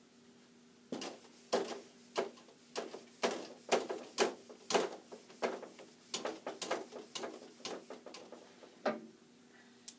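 Felt whiteboard eraser rubbing across a dry-erase board in quick back-and-forth strokes, about two a second, over a faint steady hum. A single sharp click comes near the end.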